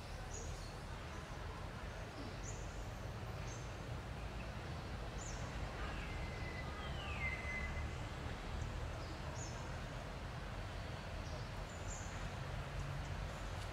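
Forest ambience: a steady low rumble with short, high bird chirps every second or two, and one whistled call that falls in pitch about seven seconds in.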